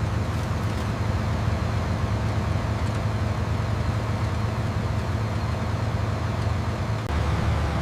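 Combine harvester engine running steadily with a low, even drone.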